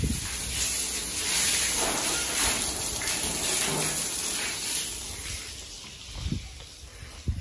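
Water spraying from a garden hose onto a concrete floor, a steady hissing gush as the floor is washed down, fading out in the last couple of seconds.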